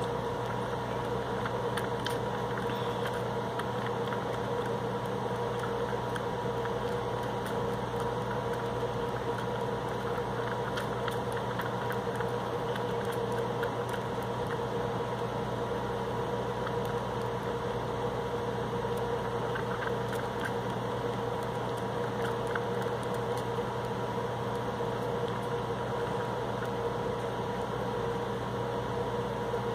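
Steady mechanical hum with a few fixed pitches in it, unchanging throughout, with a few faint clicks now and then.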